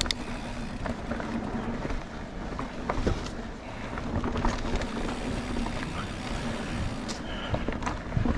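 Mountain bike riding along a dirt singletrack trail: a steady low rumble of tyres and ride noise, with scattered sharp clicks and rattles from the bike.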